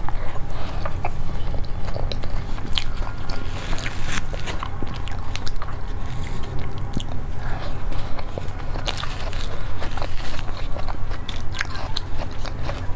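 Close-up chewing and biting of a small mousse cake that has been frozen and is a little hard, with many short sharp clicks from a metal spoon and fork on the plate.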